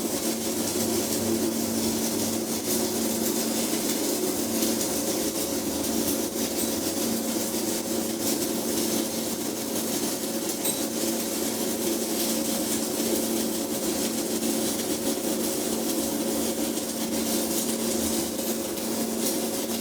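Stick (MMA) welding arc burning a 3.2 mm stainless steel electrode at about 90–100 amps: a steady, even crackle with a constant low hum underneath. The evenness is the sign of a stable arc.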